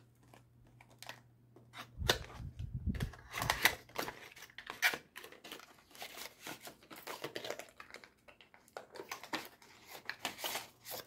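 Perfume box being opened and the bottle taken out: irregular rustling, scraping and light clicks of cardboard packaging in the hands, with a few dull knocks about two to three seconds in.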